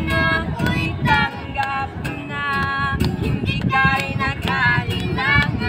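A child singing, holding long notes that waver slightly, over a light repeating clicking beat.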